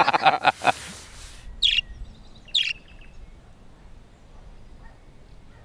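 A man laughs briefly at the start, then a budgerigar gives two short, sharp chirps about a second apart.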